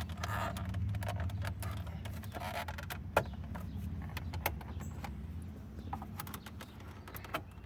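Plastic trim removal tool prying and wiggling the centre-console screen out of its clips in a 2007 Volvo S40 dash: scattered sharp plastic clicks and knocks, the loudest about three seconds in and near the end, over a steady low hum.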